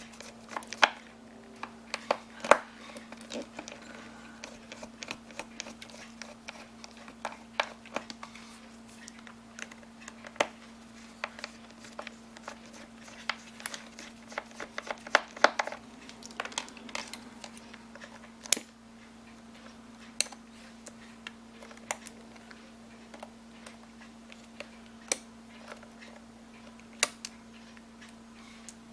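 Small screwdriver working out the four case-back screws of a Fossil Twist ME-1038 watch: irregular small metal clicks and taps of tool on screws and case, with a faint steady hum underneath.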